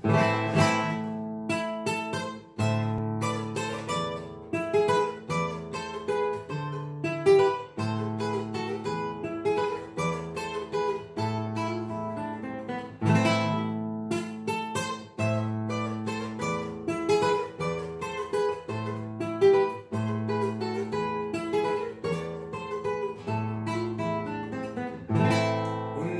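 Nylon-string classical guitar played fingerstyle in a bolero: picked arpeggios over ringing bass notes, with some strummed chords.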